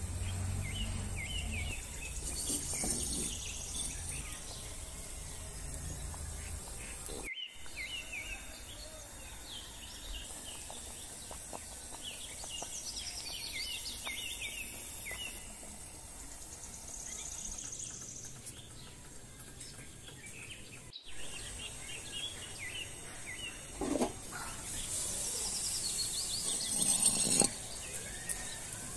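Birds chirping over a steady outdoor background hiss, with two louder knocks near the end.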